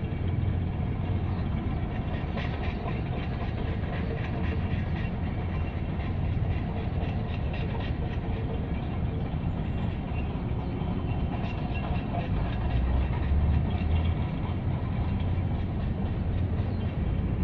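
Steady low outdoor rumble with a faint hum, swelling briefly about twelve seconds in.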